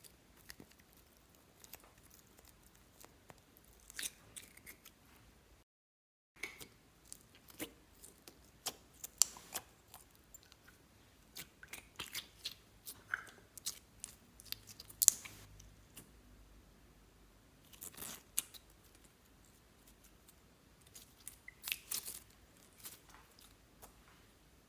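Clear slime being kneaded and squeezed by hand, giving a scattered series of sharp sticky clicks and pops. There is a brief cut to dead silence about six seconds in.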